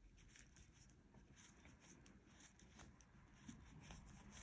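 Near silence, with faint ticks and rustling from knitting needles and yarn as stitches are slipped from one needle to another.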